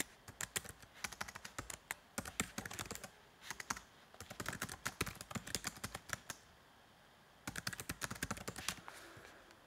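Quick runs of sharp clicks and taps, like typing on a keyboard, with a pause of about a second before a last run near the end.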